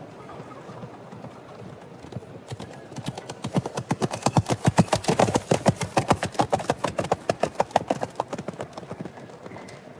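Horse hooves clip-clopping at a quick pace, about five or six strikes a second, growing louder to a peak about halfway through and then fading away.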